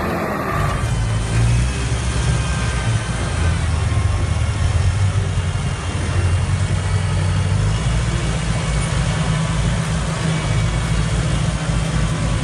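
Tractor engine running with a steady low drone.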